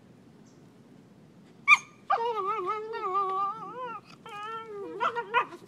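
Beagles play-fighting: one gives a sharp yip, then a long wavering whine of about two seconds, a shorter whine, and a few quick yelps near the end.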